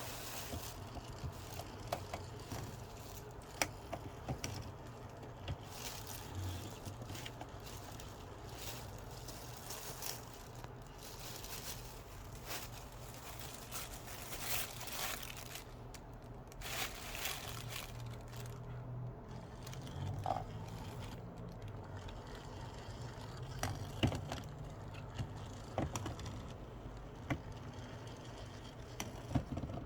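Plastic bag crinkling and rustling in irregular bursts as a kitten plays with it, over a steady low hum.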